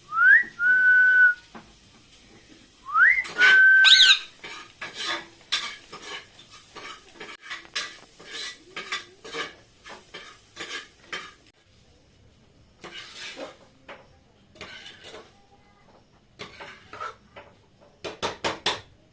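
Two whistles close to the start, each a quick upward slide into a held steady note, followed by a long run of small clicks and clatters, with a fast burst of clicks near the end.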